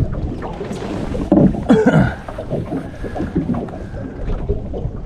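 Outboard motor being pull-started and failing to catch: one louder cranking attempt about a second and a half in that does not fire up.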